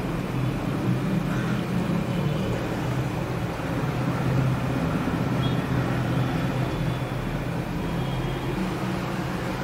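Steady low rumbling background noise with no distinct events; the knife going through the soft cake makes no sound that stands out.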